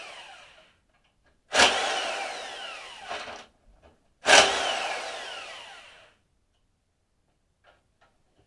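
Corded electric impact wrench run in short bursts to remove the four bolts holding the mower's front axle. There are two bursts, one under two seconds in and one about four seconds in, and each whine falls in pitch as the motor spins down after the trigger is let go.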